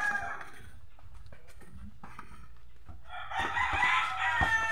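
A rooster crowing: one crow fades out in the first half second, and another long crow starts about three seconds in and runs on. A few thuds of a basketball being dribbled come near the end.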